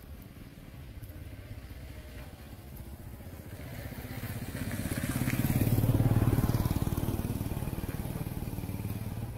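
A motor vehicle's engine passing by. It grows louder over a few seconds to a peak about six seconds in, then slowly fades.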